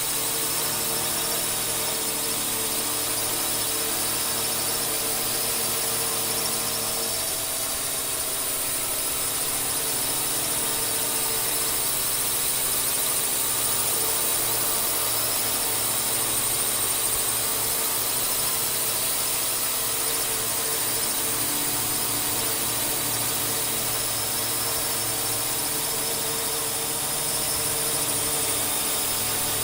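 Quadcopter drone flying: its electric motors and propellers make a steady, high-pitched whine built of several tones, the pitch wavering slightly as the motors adjust.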